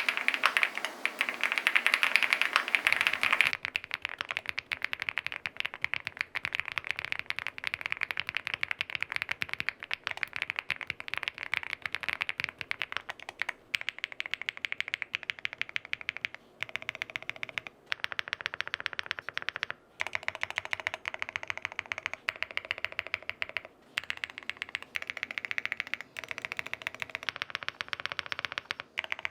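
Typing test on an SPM Joyakdol 75 aluminium mechanical keyboard: rapid, continuous keystrokes in several takes with short breaks between them, and a change in the sound about three and a half seconds in.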